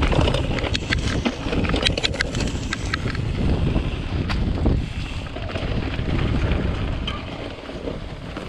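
Mountain bike riding down a dirt singletrack: wind rushing over the microphone and tyres rolling on the dirt, with the bike rattling sharply over bumps several times in the first two and a half seconds and now and then after.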